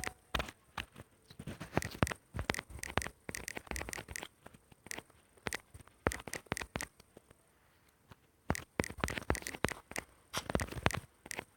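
Typing on a smartphone's on-screen keyboard: quick, irregular key clicks and taps in bursts, with short pauses, including a quiet gap of about a second midway.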